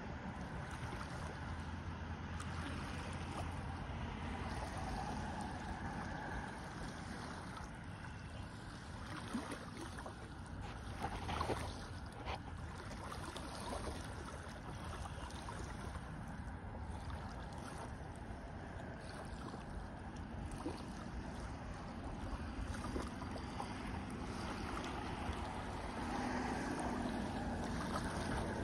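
Small waves on a calm lake lapping gently at the shore, a steady wash of water with a few slightly louder splashes near the middle.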